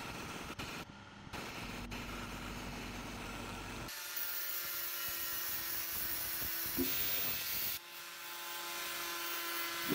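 A small rotary grinder with an abrasive stone grinding a steel bread-cutter blade, rough and uneven. About four seconds in, it gives way to an angle grinder grinding the blade's edge, a steady hum under a bright, high hiss.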